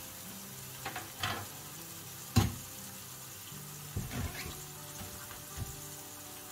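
Pork steaks sizzling as they fry in a pan, a steady hiss. Several sharp knocks and clatters cut through it, the loudest about two and a half seconds in, and a cluster around four seconds in as a plastic cutting board is set down on the stainless steel counter.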